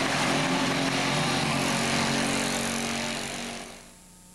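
Super stock pulling tractor's turbocharged diesel engine running hard under load as it drags the sled. The sound fades out about three and a half seconds in.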